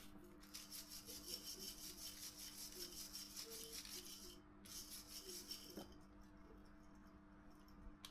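Faint, quick, even scraping strokes, about five a second, like a file or abrasive being rubbed back and forth. They break off briefly, then stop about six seconds in, leaving a faint steady hum.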